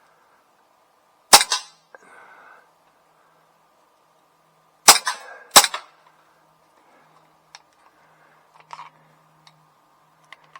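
CO2 BB pistol fired on single shot: one sharp crack, then two more in quick succession about three and a half seconds later, followed by a few faint ticks and clicks.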